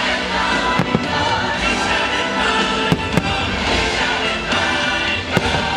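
Fireworks show soundtrack music playing loud and dense, with about four sharp bangs of aerial firework shells bursting over it, two of them close together near the middle.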